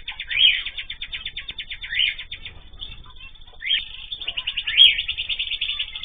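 Cage birds in an aviary chirping: a fast, continuous twitter of short notes, broken by four louder rising-and-falling calls.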